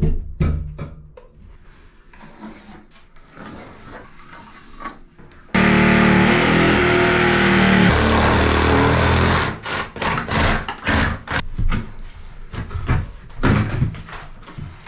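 Knocks and clatter of hand work, with a power tool's motor running loudly for about four seconds midway, then more knocking.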